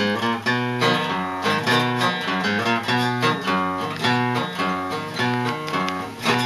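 Steel-string acoustic guitar strummed in a steady, even rhythm, chords ringing between strokes.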